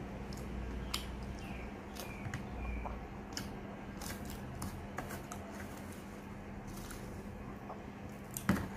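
Scattered soft clicks and crackles of eating crisp fried sweet potato: chewing, and fingers picking at and breaking pieces on a plate, with one sharper click near the end. A low steady hum runs underneath.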